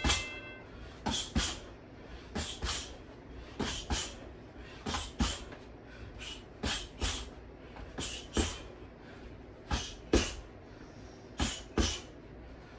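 A boxer's sharp hissing exhales, in quick pairs with each punch of a one-two combination, the pairs repeating about every second and a half, nine times.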